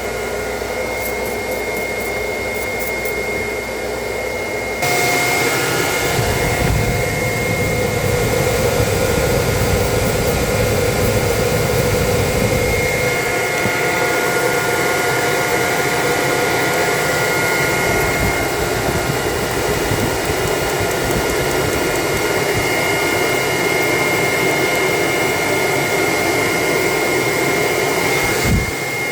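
Steady motor whine over rushing air, like a blower running, stepping up louder about five seconds in and dipping briefly just before the end.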